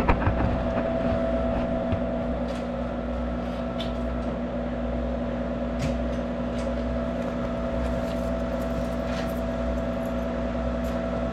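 Monarch 10EE lathe running with a steady hum made of a few even tones, with a couple of knocks right at the start.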